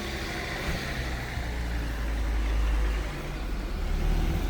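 A motor vehicle's engine running close by in the street, a steady low rumble that swells a little midway.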